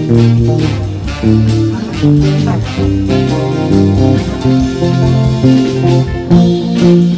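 Squier Telecaster Thinline electric guitar playing a tune over a backing track with a bass line.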